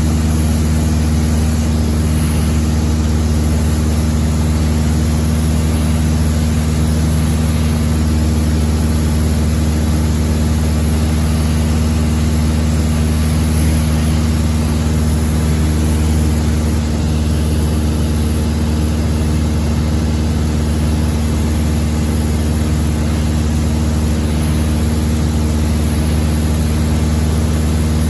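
A light propeller aircraft's engine and propeller, heard from inside the cabin, make a loud, steady drone with a constant low hum and its overtones.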